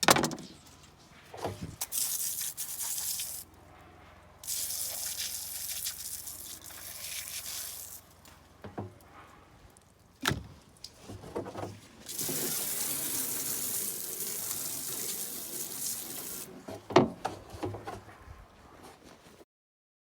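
Running water splashing in three spells as a gutted salmon is rinsed during cleaning, with sharp knocks and clunks in between.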